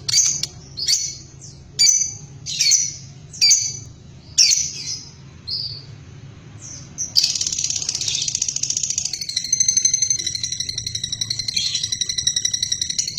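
Lovebird calling: short sharp chirps about once a second, then from about seven seconds in a continuous, rapid, buzzy chatter.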